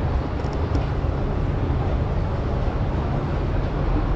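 Steady low rumble of subway station background noise, with no distinct events.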